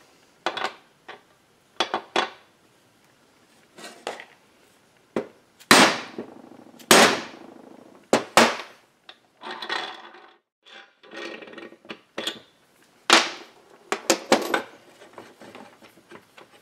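A mallet striking a homemade metal seal driver, driving a crankshaft seal into a Husqvarna 372XP chainsaw crankcase: a run of irregular knocks, some light taps and a few hard blows, each ringing briefly.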